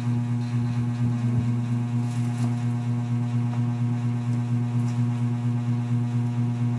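A steady low hum with a higher overtone, unchanging throughout.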